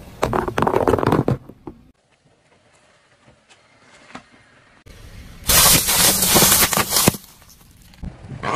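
A car tyre rolling over small objects and crushing them on asphalt. There is a crunching, crackling burst of about a second at the start, and a louder burst of about a second and a half of crunching and crackling just past the middle.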